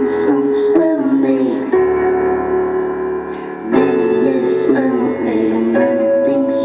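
Live band music: electric and acoustic guitars playing with sung vocals. About two seconds in, the band holds a sustained chord for a couple of seconds, then the rhythm picks back up.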